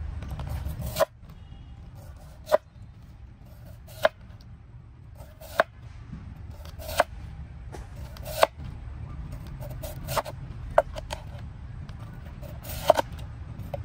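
A blade chopping, with sharp strikes about one every second and a half over a low steady rumble.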